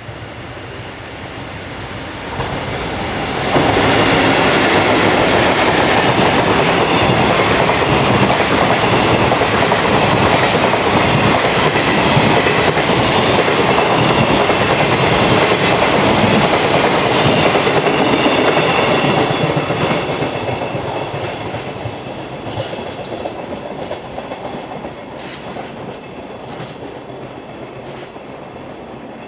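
Freight train of container wagons hauled by an EF81 electric locomotive running through close by. The sound gets suddenly loud about three and a half seconds in as the locomotive passes, holds as a steady rumble and rattle of wagons for about fifteen seconds, then fades as the train moves away, leaving a clickety-clack of wheels over rail joints.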